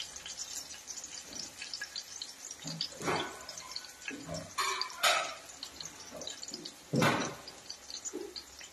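Chopped green chillies sizzling in hot oil in a kadai, the gas flame just turned off: a steady fine crackle with a few louder pops about three, five and seven seconds in.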